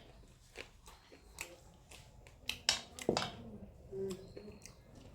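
Close-up eating sounds: wet chewing and lip smacks while eating chicken and rice, with irregular clicks and a couple of louder smacks near the middle.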